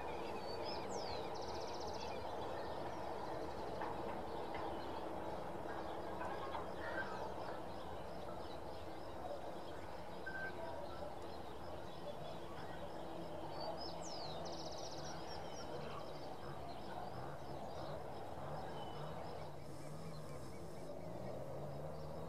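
A bird calling twice with the same short sweeping call and buzzy tail, about a second in and again past the middle, with small chirps scattered between, over a steady low background noise.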